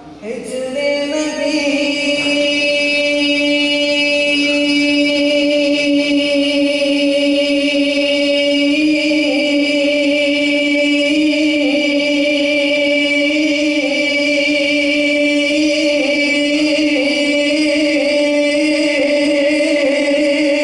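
A single chanted vocal note held as a steady drone for about twenty seconds in a naat recitation, with only slight wavers in pitch.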